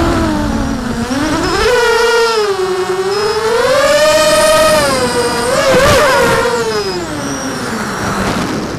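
Brushless motors and propellers of a 6-inch 4S FPV quadcopter whining, the pitch rising and falling as the throttle changes in flight.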